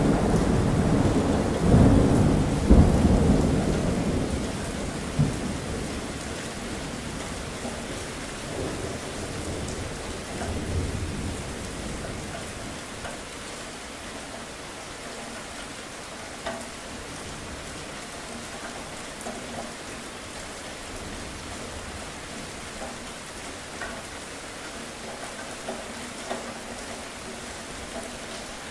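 Thunder breaks at the start and rolls for several seconds, dying away within about the first ten seconds. Steady rain goes on beneath it and then alone, with occasional drips.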